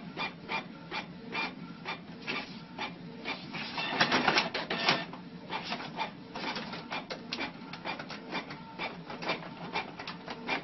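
Desktop multifunction printer printing a page: its feed and print mechanism clicks and whirrs in a quick, even rhythm of about three strokes a second, with a denser, louder stretch around four to five seconds in.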